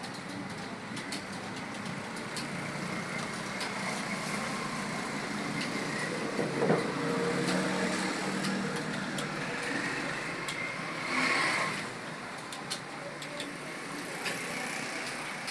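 Computer keyboard keys clicking as someone types through a speed test, scattered light keystrokes over a steady background noise, with a louder passing swell about eleven seconds in.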